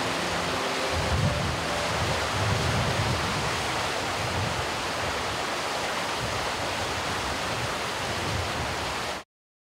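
Shallow river water rushing steadily over a stony bed, a constant even wash that cuts off suddenly near the end.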